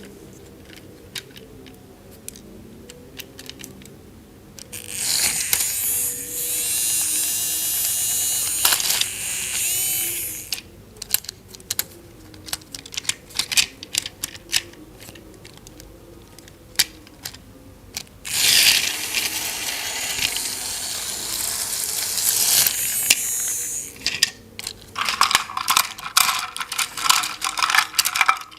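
Plastic toy pieces clicking and clattering, with two stretches of about five seconds each of a small battery-powered toy motor whirring.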